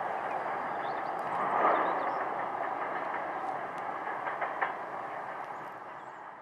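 Freight train of tank wagons rolling away on the rails: a steady rumble and rattle of wheels on track, with a few sharp clacks. It slowly fades toward the end.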